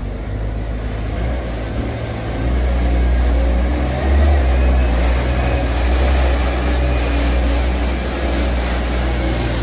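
JCB 403 compact loader's diesel engine running, with its sweeper brush attachment sweeping a concrete floor. The engine gets louder about two and a half seconds in.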